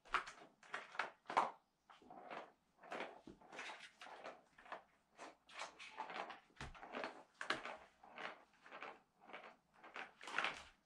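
A ball rolling and rattling inside the plastic track of a Catit Senses Super Roller Circuit, in short rushes about two or three a second as a cat bats it along.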